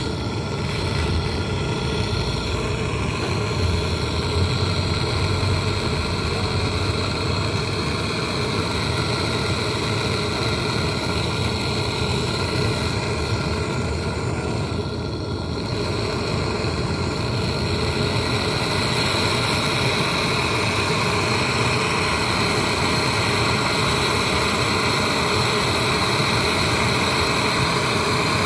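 Gas brazing torch flame hissing steadily while refrigerant pipe joints are brazed, with a brief dip about halfway through.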